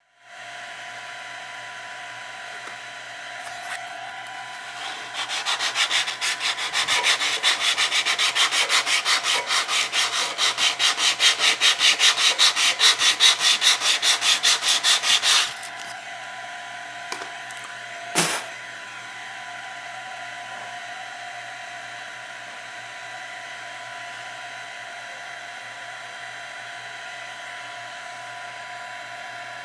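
150-grit sandpaper rubbed in quick, even back-and-forth strokes over 3M tape on a 3D printer's bed, roughing up the surface. The strokes start about five seconds in and stop about halfway through, over a steady background hum, and a single sharp knock follows a few seconds later.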